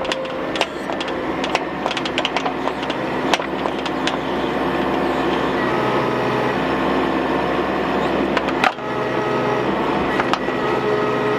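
Bobcat mini excavator's diesel engine running steadily under digging load, with a light whine in the second half. Scattered clicks and knocks as the bucket scrapes through soil and stones, with one sharp knock about three-quarters of the way through.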